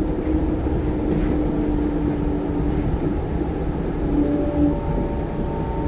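Nippori-Toneri Liner rubber-tyred automated guideway train running, heard from inside the car: a steady rumble with a steady hum from the electric drive. A second, higher tone joins about four seconds in, and a third about a second later.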